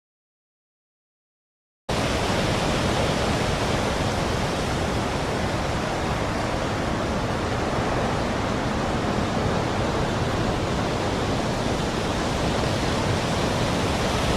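Silence for about two seconds, then a steady rushing noise starts abruptly and holds evenly: the masking noise bed under which subliminal affirmations are hidden.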